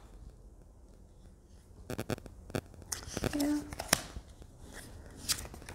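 Tarot cards being handled and flipped one at a time: a few soft slides and sharp little clicks of card against card, starting about two seconds in.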